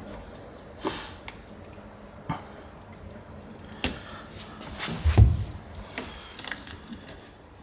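Scattered handling noises: a few sharp clicks and taps, with a heavier low thud about five seconds in.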